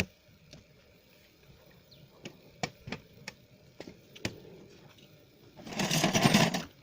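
Scattered light clicks and knocks, as of fishing gear being handled, then a loud rustling noise lasting about a second near the end.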